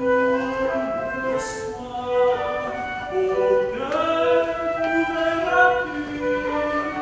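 Tenor singing a French art song in classical style, holding long notes, with a flute accompanying him.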